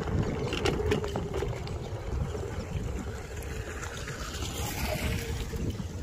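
Electric kick scooter rolling over a rough dirt track: a steady low rumble of its small wheels and frame, with wind on the microphone. A few sharp rattles come in the first second or so as it hits bumps.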